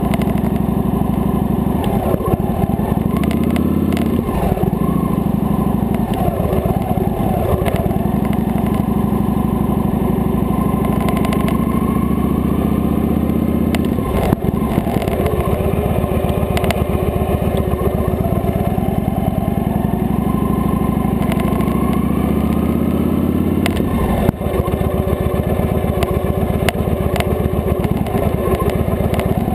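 Victory High-Ball's V-twin engine running at low speed. Its note rises with the throttle twice and breaks briefly about halfway through and again near the end.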